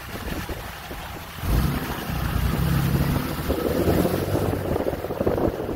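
Wind buffeting the microphone at the open window of a slowly moving vehicle, with the engine and tyres running underneath; it gets louder about a second and a half in.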